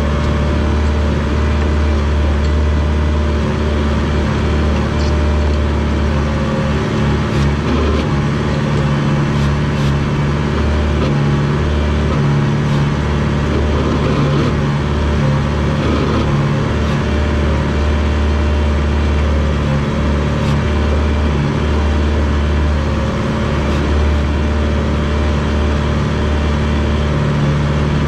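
Diesel engine of a rubber-tracked Komatsu DP21 bulldozer running steadily at working revs, a constant low drone with a few faint knocks.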